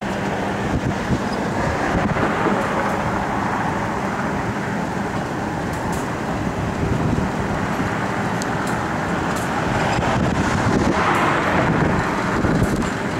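EMD SD38-2 diesel locomotive approaching slowly, its engine running steadily, mixed with road traffic noise and wind on the microphone; the sound grows a little louder about ten seconds in.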